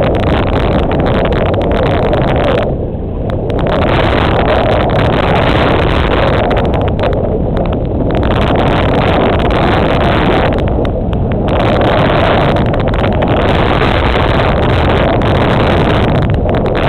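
Sportfishing boat's engine running with water noise, a loud steady rush that is heavy in the low end. An upper hiss drops away briefly several times.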